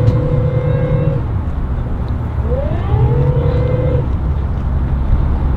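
Twin outboard motors running under throttle as a center-console boat is power-loaded onto its trailer, a steady low rumble with prop wash churning. A whining tone over it fades about a second in, then rises in pitch about two and a half seconds in and holds until near four seconds.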